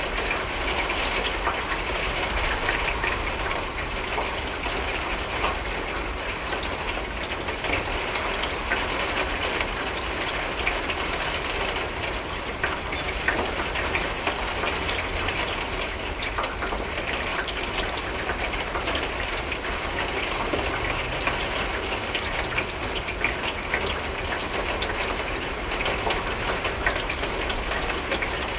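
Steady rain on a window: a dense, even hiss sprinkled with many small drop ticks, over a constant low rumble.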